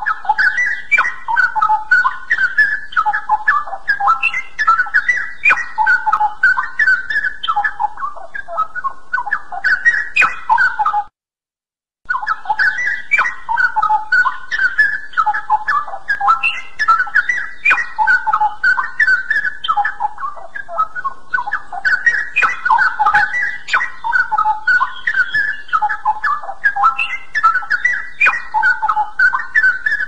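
Straw-headed bulbul (cucak rawa) singing, one quick run of notes after another with no real pauses. The song breaks off for about a second around eleven seconds in, then resumes.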